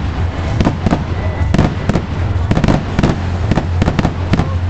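Fireworks display: a rapid, irregular run of sharp bangs and cracks, several a second, over a steady low rumble.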